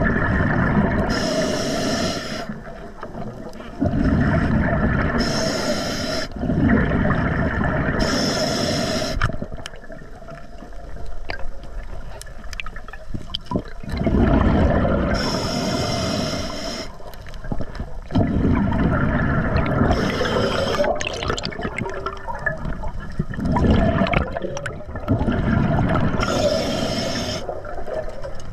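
Scuba diver breathing through an Atomic regulator underwater: about half a dozen hissing inhalations, each followed by a gurgling rush of exhaled bubbles.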